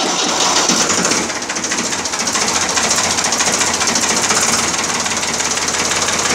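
Ford 3600 tractor's three-cylinder diesel engine running just after being started on the electric self-starter, loud and steady with a rapid, even clatter.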